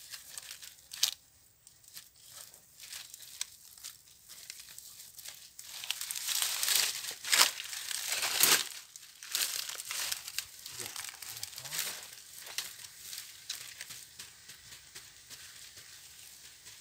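Dry leaves crackling and a wire-mesh cage trap rattling as it is handled and set down on the leaf litter, with scattered sharp clicks. The rustling is loudest about six to nine seconds in.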